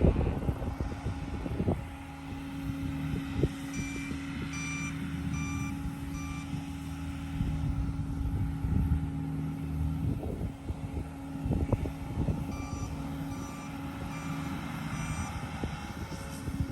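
Bobcat T650 compact track loader running steadily, its backup alarm beeping in two runs of four beeps about three-quarters of a second apart as it reverses, with occasional clunks of the machine working dirt.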